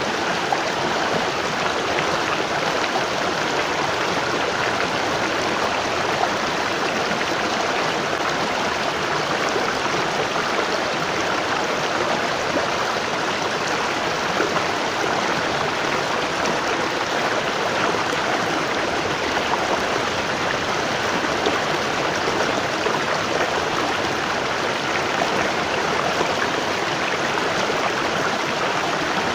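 Waterfall falling: a steady, even rush of water with no change.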